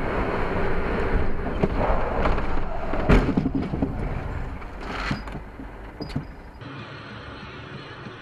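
Road and engine noise from a moving vehicle, with several sharp knocks, the loudest about three seconds in and others near five and six seconds. Near the end it gives way to a quieter, steady road hum.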